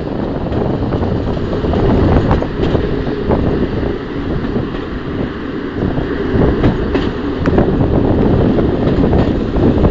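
Single-car diesel railcar (a 'bubblecar' DMU) running on the line: a steady low noise broken by irregular sharp clicks.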